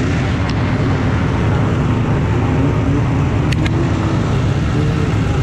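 Vintage two-stroke snowmobile engines idling together in a steady low rumble, the nearest being the rider's own sled. A couple of short sharp clicks come about three and a half seconds in.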